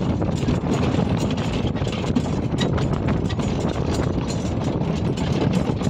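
Horse-drawn cart rolling along a gravel road: a steady rumble and crunch from the wheels, with the horse's hooves and the harness chains clattering in quick irregular clicks.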